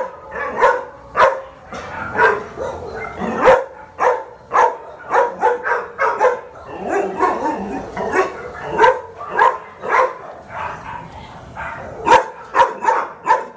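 Dogs barking over and over, short sharp barks coming about one to two a second, some of them overlapping.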